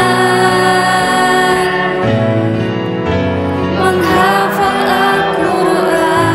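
An Indonesian Islamic song: sung vocals with a choir over instrumental backing, held long notes and sustained chords.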